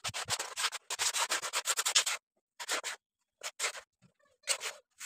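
Ash and grit being scraped and rubbed out of a chulha by hand and gathered up: a dense run of scraping for about two seconds, then a few separate short scrapes.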